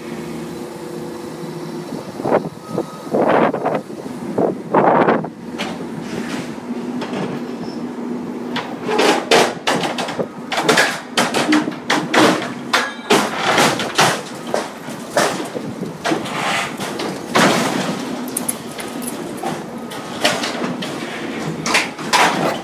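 Komatsu excavator demolishing a steel-framed building with its bucket and thumb: the engine runs steadily under repeated crashes, scraping and clatter of metal and debris, a few early on and then many in quick succession from about a third of the way in.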